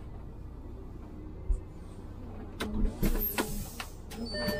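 Iveco Urbanway 12 diesel city bus idling at a stop with a low steady rumble; a thump, then a hiss of compressed air with clicks as the pneumatic doors work, and near the end a repeating high beep starts.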